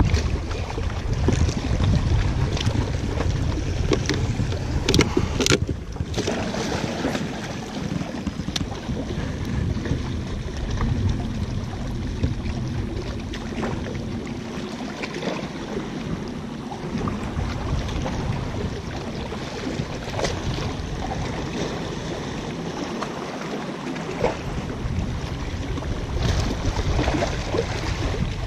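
Wind buffeting the microphone over waves washing against breakwater rocks, with a few sharp clicks about five seconds in. The rumble of the wind eases after the middle.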